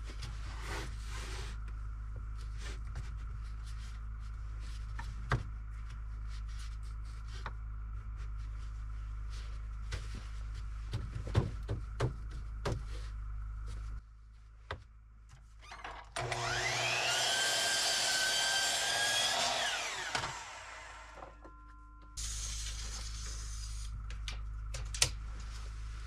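Sliding compound miter saw spinning up with a rising whine and cutting across the end of a rough home-milled board to square it, then winding down after about four seconds. Before the cut, the boards knock and scrape as they are shifted into place.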